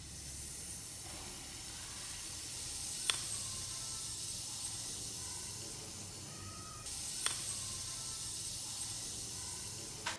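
Salt poured in a stream into a tub of water: a steady high hiss as the grains hit the surface, dipping briefly and coming back about two-thirds of the way through. Two faint ticks, one near the middle and one later.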